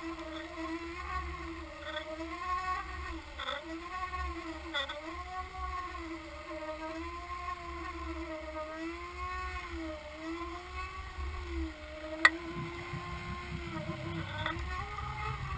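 Boat motor heard underwater through a towed camera's housing: a steady droning tone whose pitch wavers up and down about once a second, with a single sharp click about twelve seconds in.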